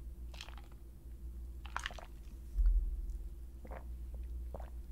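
Close-up mouth sounds of a man drinking from a cup and chewing: a few short, scattered wet smacks and clicks, with a low bump about halfway through.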